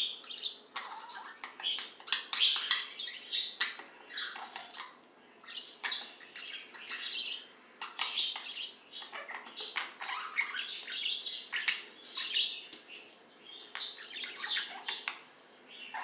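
Budgerigars chattering and warbling: a steady, irregular stream of chirps, trills and short squawks.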